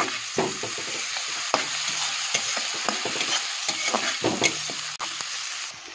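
Finely chopped onions sizzling in hot oil in a kadai while a spatula stirs them, scraping and knocking against the pan at irregular moments. The sizzle cuts off suddenly just before the end.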